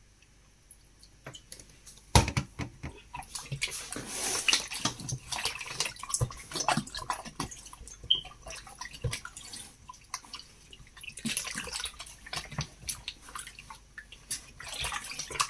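Water running and splashing as raw chicken is washed and handled in a sink, with dripping and small knocks. A sharp knock comes about two seconds in, before the splashing starts.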